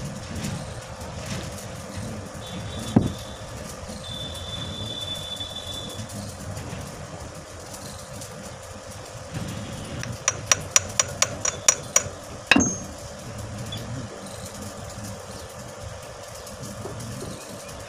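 Metal-on-metal knocks on the steel parts of an oil expeller's worm shaft as collars are fitted: a single knock, later a quick run of about eight light ringing taps and then one heavier clank.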